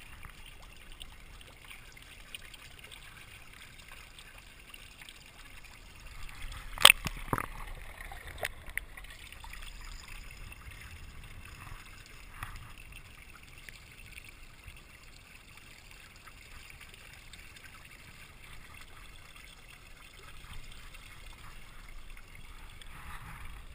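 Thin stream of water trickling from an outboard motor's lower unit and splashing onto the canal surface and onto manatees' snouts. A few sharp knocks about seven to eight and a half seconds in, the loudest about seven seconds in.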